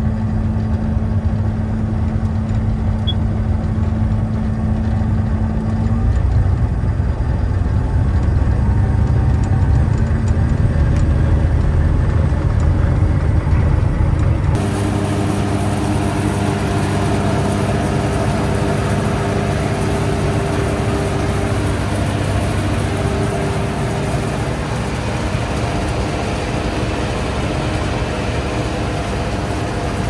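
Combine harvester running with its threshing drive engaged, a steady engine hum heard from inside the cab. About halfway through the sound switches abruptly to beside the machine, where it is brighter and noisier, with several steady tones from the running belts, pulleys and drums.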